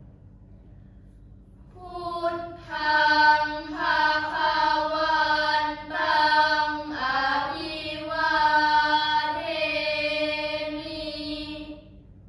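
A group of girls chanting a Thai Buddhist prayer in unison, with long, drawn-out syllables on a fairly steady pitch. The chanting starts about two seconds in and stops just before the end.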